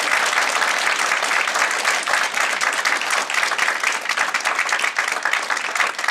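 Audience applauding, a dense patter of many hands clapping that thins out toward the end into more separate claps.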